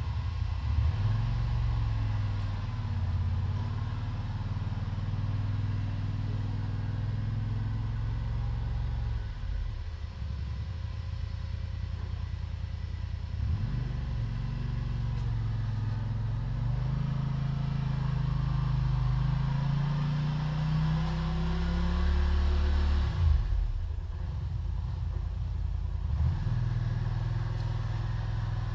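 ATV engine running under load while plowing snow with a front blade, its pitch rising and falling as the throttle changes; the note climbs steadily for several seconds, then drops off sharply about two-thirds of the way through.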